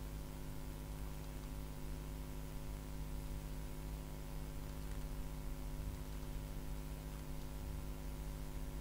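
Steady electrical hum with a layer of hiss underneath, the constant background noise of a recording microphone, unchanging throughout.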